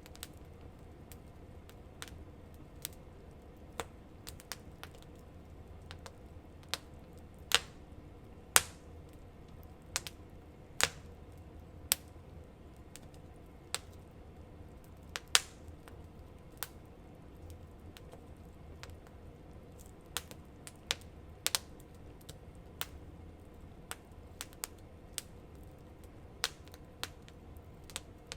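Wood campfire crackling: irregular sharp pops and snaps, a few of them much louder, over a faint low rumble.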